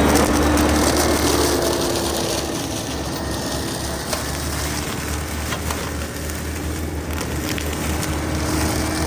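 Yanmar ViO55 excavator's diesel engine running under load, driving a FEMAC flail mulcher head that shreds tall grass, with a steady low hum and a scatter of small crackles and snaps from the material being chewed up.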